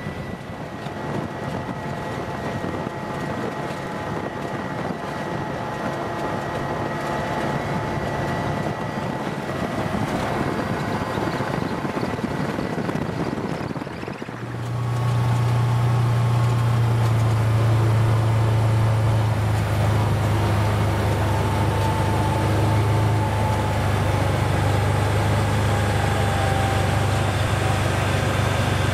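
Can-Am side-by-side UTV engine running while driving on a gravel road. About halfway in, the sound turns louder into a steady low drone.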